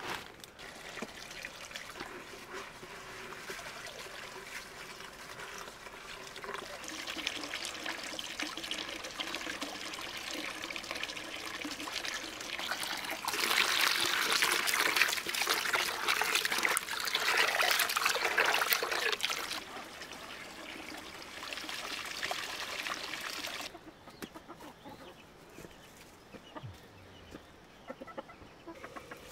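Water running from a pipe spout into a plastic bucket as rice is rinsed by hand. The flow is loudest in the middle and stops sharply about three-quarters of the way through. Chickens cluck, mainly near the end.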